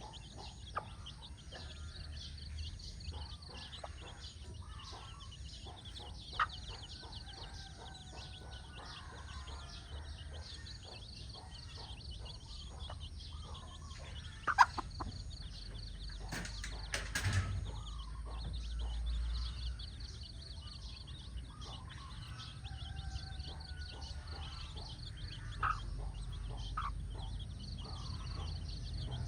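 A hen clucking among her peeping chicks, with a constant patter of high chirps. A few sharp clicks are scattered through, and there is a short burst of what sounds like wing flapping a little past the middle.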